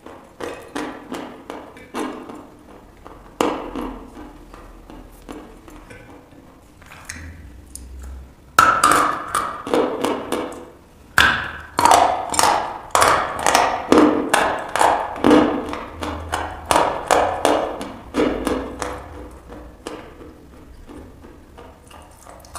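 Close-miked chewing of dry chalk: sharp, crisp crunches about two a second, loudest through the middle and easing off near the end.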